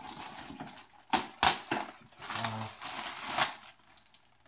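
Clear plastic wrap around a small server crinkling and rustling in irregular bursts as it is pulled open, with a few sharp clicks.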